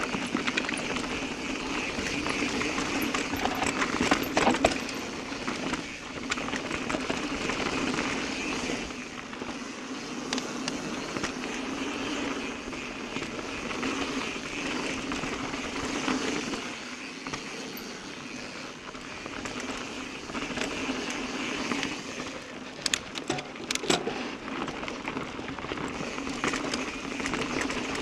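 Mountain bike rolling fast down a dirt singletrack: steady tyre and wind noise mixed with the bike's rattle. Sharp knocks from bumps come a few seconds in and again near the end.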